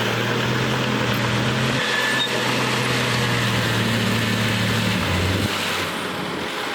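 Diesel engine of heavy earthmoving machinery running steadily with a low hum; the engine note drops slightly about five seconds in.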